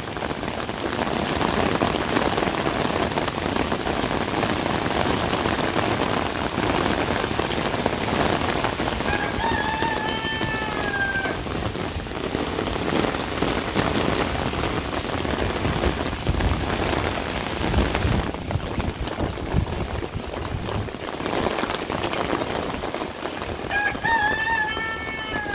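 Steady rain falling on concrete paving and potted plants. A rooster crows twice over it, once about ten seconds in and again near the end, each call about two seconds long and falling slightly at its end.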